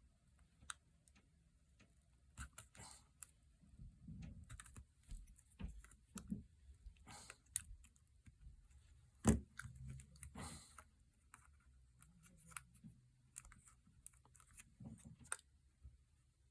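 Faint scattered clicks and light taps of small parts being handled and fitted on a phone, with one sharper click about nine seconds in.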